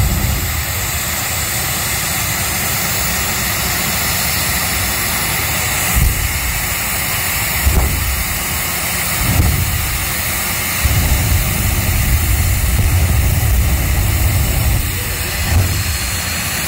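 Jet truck's jet engine running at the starting line: a steady, loud jet noise with deep surges of low rumble several times, the longest one in the second half.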